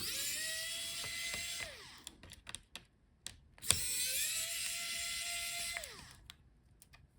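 Electric screwdriver backing out the heatsink and fan screws of a laptop: two runs of about two seconds each, the motor whining up to a steady pitch and winding down, with light clicks between them.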